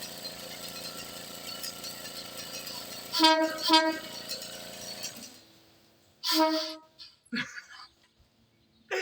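Air-powered train horn giving short, weak toots: two quick blasts about three seconds in and another about six seconds in. Under them a steady hiss of escaping air dies away about five seconds in. The horn is broken and losing air, so it won't sound a full blast.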